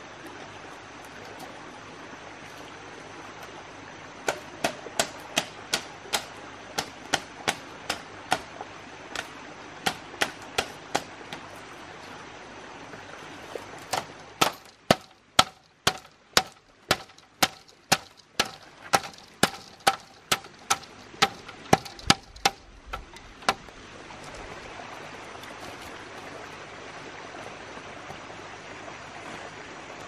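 Repeated sharp blows of a hand tool striking wood, about two a second, in two runs over the steady rush of a stream. The second run is a little faster and each blow rings with a faint pitch.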